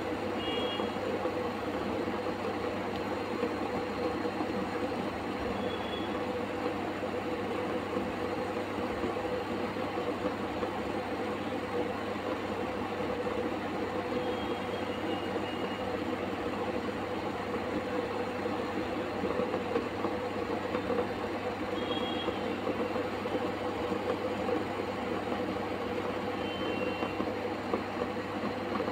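Water in a steel pot heating up to the boil on a stove: a steady rumbling hiss as bubbles form and collapse.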